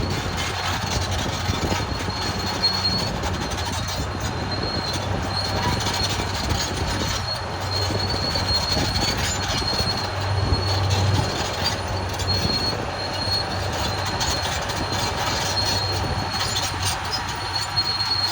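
Caterpillar D6R XL bulldozer at work: its diesel engine running steadily under a high metallic squeal from the steel tracks that comes and goes.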